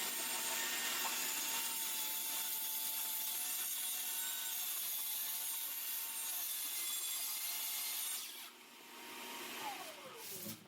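Kreg track saw cutting through wood with a Festool MIDI dust extractor drawing off the dust, a steady cutting noise over a high motor whine. About eight seconds in the cutting noise drops away, and near the end the saw's whine falls in pitch as the blade spins down.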